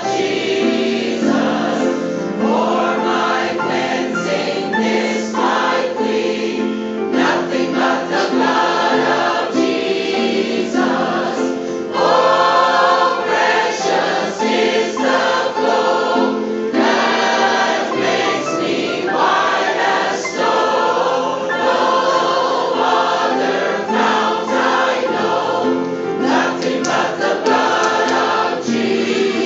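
A large mixed choir singing a gospel song, with sustained harmonies.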